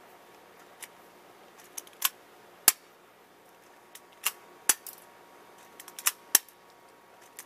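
P.901 6 mm airsoft pistol being test fired: a series of short, sharp snaps, about seven of them, coming irregularly a second or two apart.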